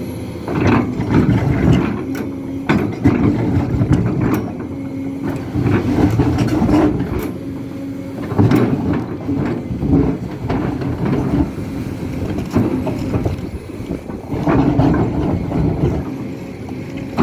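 Hidromek HMK 500LC H4 50-tonne excavator working: its diesel engine runs steadily and swells in repeated surges every couple of seconds, with sharp knocks and clanks over it.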